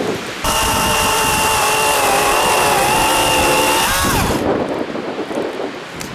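Battery-powered electric chainsaw running with a steady high whine for about four seconds, then spinning down with a falling pitch as it is released.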